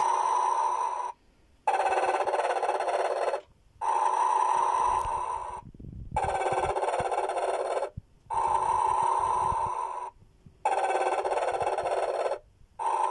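Snoring sleeping-Santa decoration playing its recorded snore through a small speaker, thin and without bass. Breaths come about every two seconds, each lasting well under two seconds with short gaps between them.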